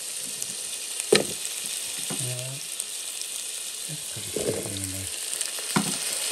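Sliced Korean sweet potatoes sizzling steadily in hot oil in an electric pan, with a couple of sharp knocks as more slices are tipped in from a bowl.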